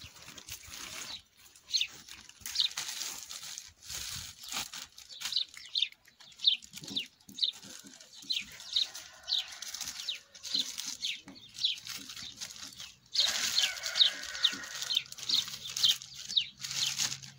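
Clear plastic bag crinkling and rustling as it is handled and wrapped around a tree branch, with many short, high bird chirps over it.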